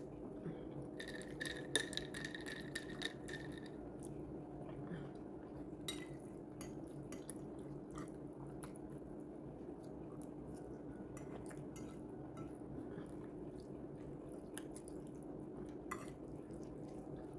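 Metal fork clicking and scraping against a ceramic plate while eating, in scattered faint clinks over a steady low hum.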